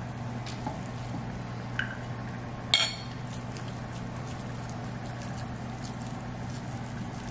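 Quiet kitchen sounds while raw meatball mixture is shaped by hand: a steady low hum, a few light taps, and one sharp ringing clink of kitchenware about three seconds in.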